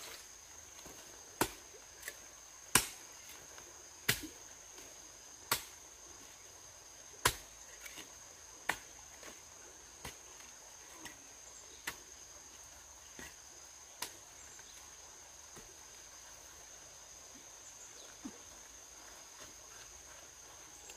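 Sharp knocks struck one at a time, about one every one and a half seconds, sparser and fainter after about twelve seconds, over a steady high-pitched hum.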